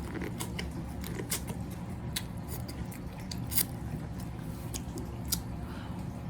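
Close-up eating of a seafood boil: chewing, with irregular sharp clicks and cracks of shells being broken, over a steady low hum.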